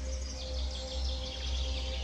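Small birds chirping, with many short falling calls overlapping, over a steady low rumble.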